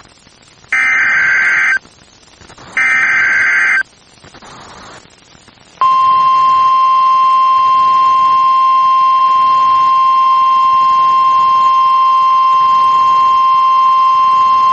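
NOAA Weather Radio Emergency Alert System signal: two short bursts of SAME digital header data, about a second each and a second apart, then after a pause a steady 1050 Hz warning alarm tone that starts about six seconds in and holds for about nine seconds. The signal announces a tornado warning.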